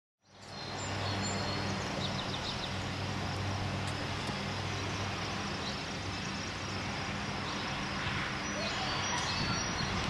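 Outdoor ambience fading in: a steady hiss with a low, even hum underneath and a few faint, high bird chirps.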